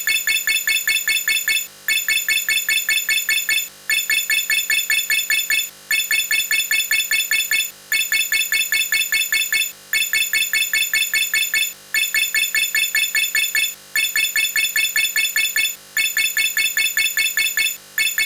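A looped synthesized electronic sound: rapid high beeps, about five a second, in runs of nearly two seconds, each followed by a short break.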